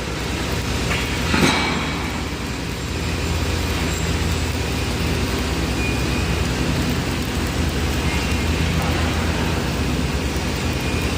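Electric arc welding: a steady arc crackle with a short louder flare about a second and a half in.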